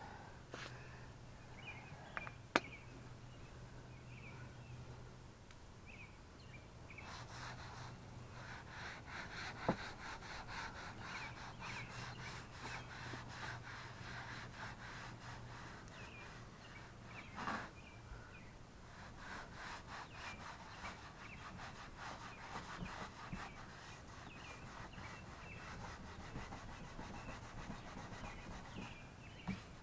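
Cloth rubbing plastic restorer into a car's black plastic bumper trim in quick, repeated strokes, faint. Two sharp clicks stand out, one a couple of seconds in and one about a third of the way through.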